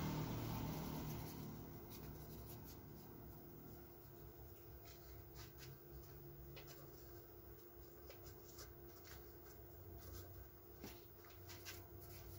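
Faint, scattered light rubbing and small clicks of a hand pressing and smoothing a freshly glued paper speaker cone and its edge, with a few sharper ticks near the end, over a faint steady hum.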